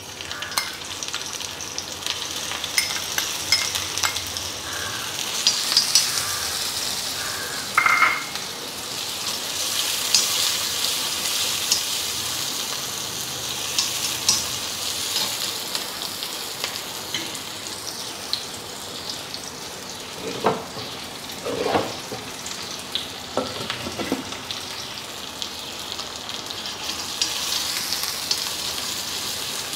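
Sliced shallots sizzling in hot ghee in a steel kadai, stirred with a spoon that scrapes and clinks against the pan now and then.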